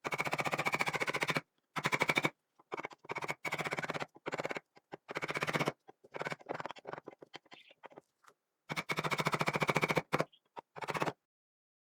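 A power tool running in short bursts of about a second, each a fast, even rattle, stopping and starting over and over.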